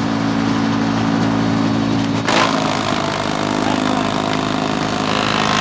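A woodchipper's engine running steadily. About two seconds in, a sudden loud burst as a shirt is fed in and shredded, followed by continued rough chipping noise over the engine.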